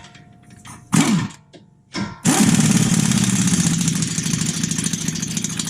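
Pneumatic impact gun hammering a nut tight on a new front strut's lower mount. It runs in a long continuous rattling burst from about two seconds in.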